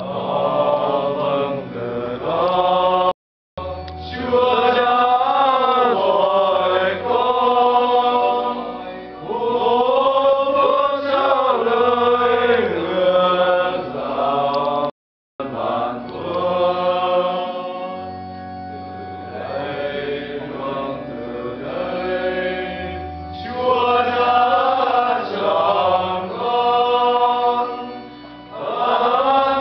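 A group singing a church hymn together over sustained low accompanying notes. The sound cuts out completely twice, briefly, about three seconds in and again about halfway through.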